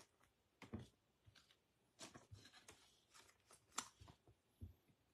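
Faint, scattered rustles and taps of trading cards being handled and set down on a tabletop, the loudest about four seconds in.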